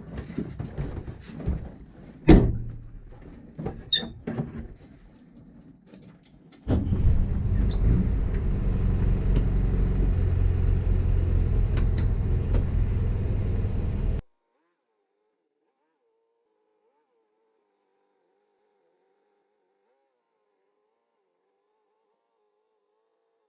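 A few scattered knocks and clunks, then a motor vehicle running steadily with a loud low rumble for about seven seconds, which cuts off abruptly into silence.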